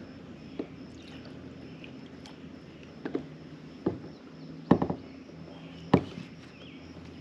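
Sharp knocks on a fishing kayak, about five spaced a second or so apart, the two near the end loudest, over a faint steady low hum.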